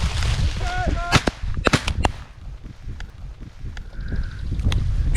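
Wind buffeting the microphone, then a short pitched call just before a second in, followed by a handful of sharp clicks or snaps.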